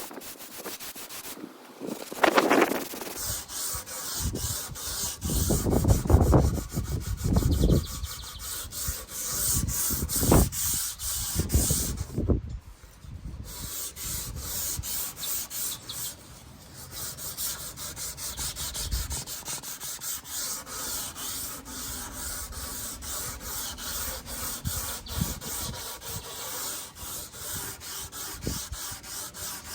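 Sanding on spotted gum hardwood boards to take off the old finish: a rasping hiss in quick, even strokes, about four a second, stopping briefly twice. Wind buffets the microphone with low rumbling gusts in the first dozen seconds.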